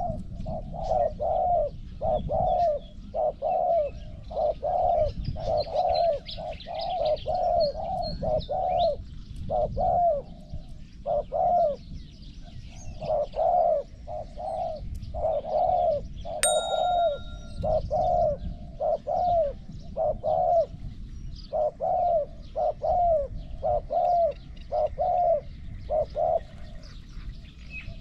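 Spotted dove cooing, a long series of short low coos about twice a second, broken by a few short pauses.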